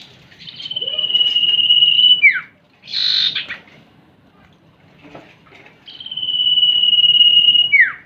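Common iora (cipoh) calls: twice a long, steady high whistle of almost two seconds, each ending in a quick falling note, with a short harsh rasping burst between them.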